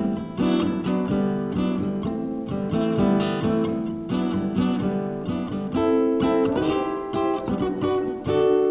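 Classical guitar played solo, a continuous run of plucked notes and chords, several to the second.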